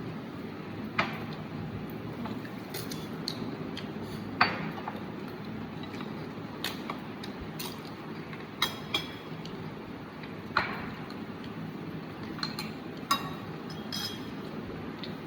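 Kitchen utensils clinking and knocking: about a dozen separate, irregular strikes, the loudest about four and a half seconds in, over a steady low hum.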